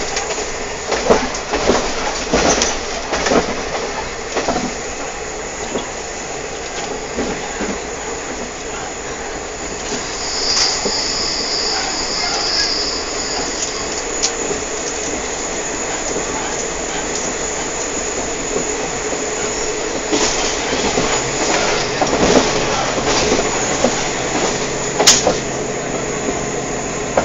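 Sprinter diesel railcar running, heard from inside the passenger carriage: a steady rumble and rattle of the moving car, with knocks in the first few seconds. About ten seconds in, a high wheel squeal sounds for about three seconds.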